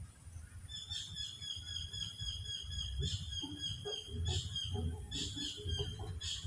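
Birds calling: a high, rapidly pulsing chirp that starts about a second in and keeps repeating, with sharper call notes roughly once a second, over a low steady rumble.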